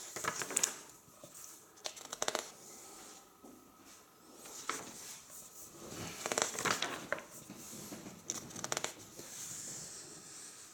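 Pages of a large hardcover photo book being turned by hand: paper rustling and flapping, five or six page turns a couple of seconds apart.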